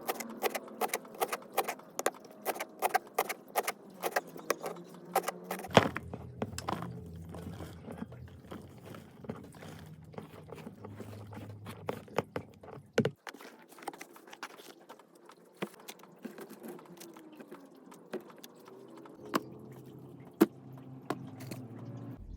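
Rapid clicking, clinking and knocking of kitchen items being handled, busiest in the first few seconds and sparser after, over soft background music.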